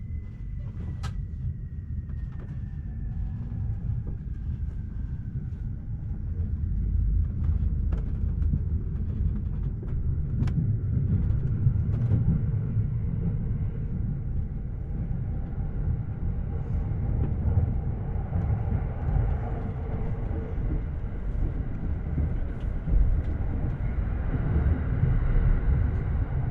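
Electric commuter train running, heard from inside the carriage: a steady rumble of wheels on rail that grows louder as the train picks up. A whine falls in pitch over the first few seconds, and a few sharp clicks come through.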